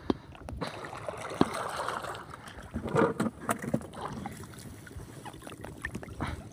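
Shallow seawater splashing and sloshing as a gill net is handled and pulled through the water by hand, with a sharp knock right at the start and a burst of louder splashes about three seconds in.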